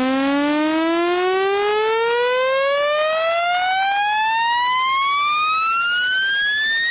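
A single electronic tone gliding slowly and steadily upward in pitch at an even loudness. It is a water-eject sweep tone, meant to shake water out of a phone's speaker.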